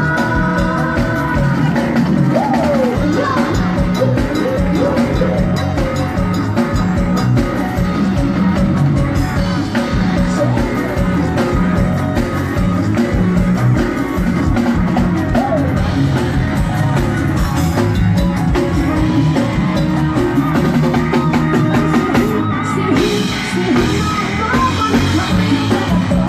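Live band music played loud through a PA, with a drum kit keeping a steady beat and a voice singing over it.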